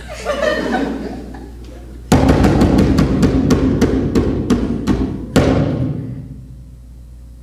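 Drums played hard: from about two seconds in, a fast, loud run of hits lasting about three seconds, ending on one big hit that rings out and fades.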